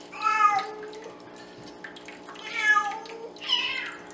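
A Bengal cat gives three loud, drawn-out meows: one at the start and two close together near the end.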